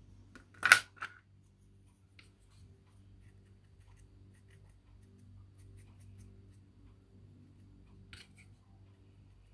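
Small handling noises at a craft table: one short, sharp click about a second in, followed by a softer one, then a few faint small clicks over a low steady hum.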